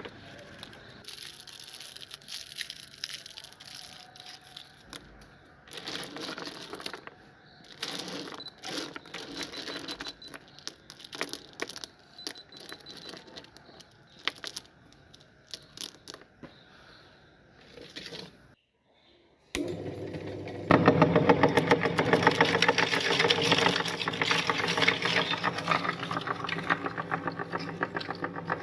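Irregular clicking and rattling of hard candies being handled. After a brief silence, an electric meat grinder's motor starts running steadily and loudly with a fast rattle as it grinds the candy.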